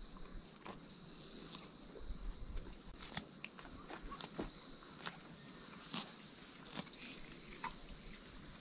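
Cow grazing, tearing grass in short irregular crunches, while an insect chirps in short high bursts every second or two.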